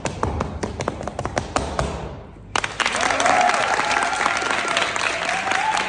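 Rapid stamps and heel taps of a folk dancer's hard-soled shoes on a hard floor, stopping about two seconds in. After a brief pause, loud applause breaks out with a voice cheering over it.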